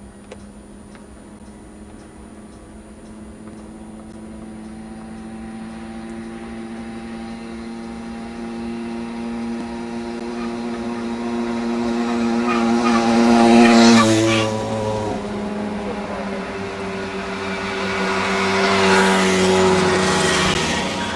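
Small two-stroke moped engines at full throttle in a race, their buzz growing steadily louder as they approach. The loudest passes close by about 14 seconds in with a drop in pitch, and a second one passes a few seconds later.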